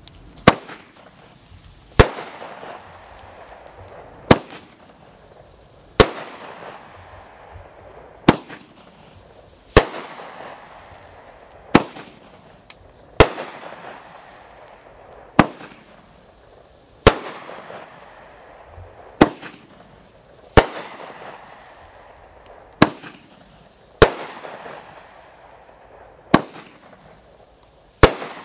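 World Class Fireworks 'Widow Maker' multi-shot cake firing aerial shells one after another: about sixteen sharp bangs roughly every two seconds, each trailing off after the burst.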